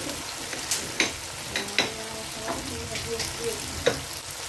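Thick tomato sauce frying in oil in a frying pan, sizzling steadily, with a few sharp pops scattered through it.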